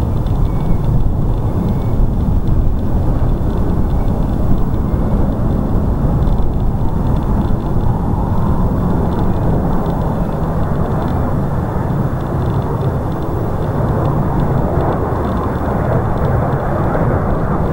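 Jet engines of a Boeing 737-800 on final approach, a steady rumble that grows brighter and fuller in the last few seconds as the aircraft comes closer.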